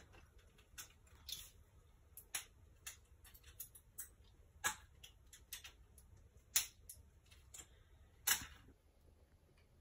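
A string of irregular light clicks and taps, with three louder ones about halfway in, about two-thirds in and near the end.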